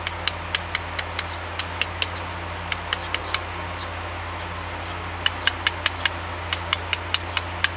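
Hand hammer tapping a chisel into a carved relief wall, light sharp taps about four a second, stopping briefly about three and a half seconds in and then starting again.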